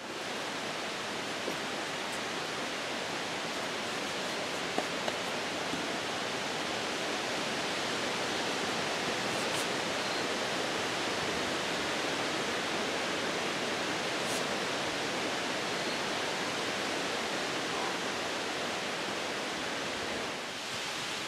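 Steady rushing outdoor background noise with no clear pitch, with a few faint taps about five seconds in.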